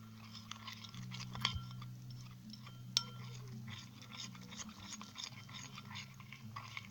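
Glue-and-baking-soda slime being mixed in a container as it begins to set: faint sticky, wet squelching with scattered light clicks and taps, one sharper click about three seconds in, over a low steady hum.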